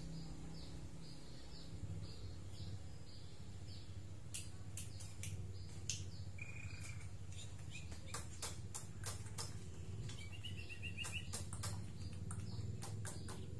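White-rumped shama calling in its cage: a scattered series of sharp clicks, a short whistled note about six seconds in, and a quick run of rapid notes near ten seconds, all fairly quiet.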